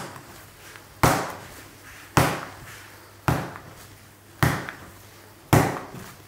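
Bread dough being lifted and slapped down onto a wooden workbench in slap-and-fold hand mixing: six sharp smacks, about one a second, each dying away quickly. The dough is nearly fully mixed, strong enough now to pop off the hand with each slap.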